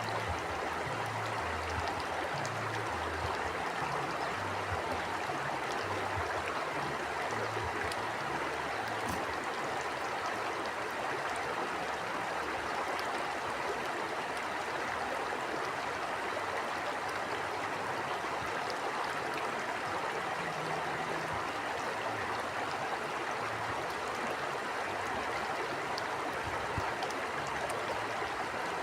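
Steady rush of a flowing stream, with an uneven low rumble underneath.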